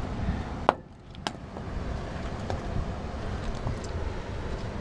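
Two sharp knocks about half a second apart, about a second in, as a stone-encrusted iron clamp is struck against concrete to break the stone off it. A low steady rumble runs underneath.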